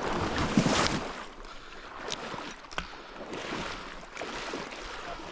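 A retriever dog splashing and swimming through pond water, loudest in the first second as it churns out past the decoys, then quieter as it swims away.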